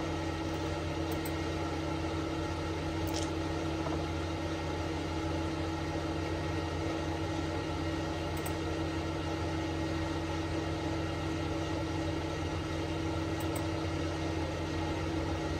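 A steady mechanical hum with a held tone in it, and a few faint mouse clicks spaced several seconds apart.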